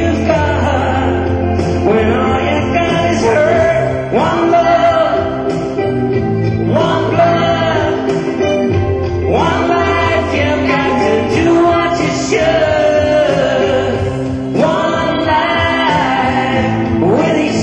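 A live band playing a song with sung vocals and backing harmonies.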